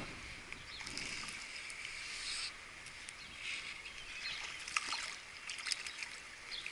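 Water splashing and sloshing as a hooked brown trout thrashes at the surface, with the sharpest splashes about five seconds in.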